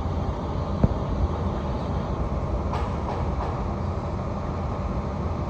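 Steady low rumble of city noise, with one sharp click a little under a second in.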